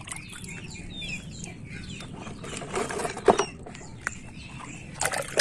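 Plastic toy trucks being handled on a wet concrete ledge, with a few light knocks, the sharpest about three seconds in, and faint bird calls behind them. Near the end, muddy water starts splashing as a hand goes into it to wash a toy.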